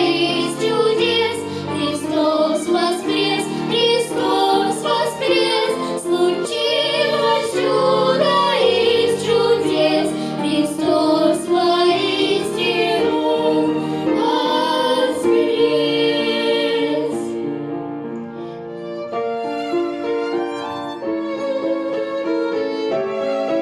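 Instrumental break of a pop-style song: a violin-led melody over a backing track with a steady beat. About seventeen seconds in, the drums drop out and a softer violin and string passage continues.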